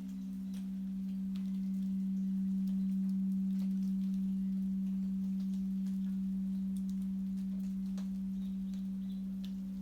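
Crystal quartz singing bowl sustaining one low, steady tone with a fainter tone just above it, slowly swelling louder and easing off again. Faint scattered ticks sound above it.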